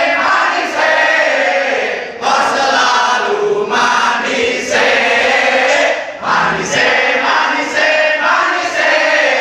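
A group of women singing and chanting a scout squad's cheer song loudly in unison, in short phrases with brief breaks between them.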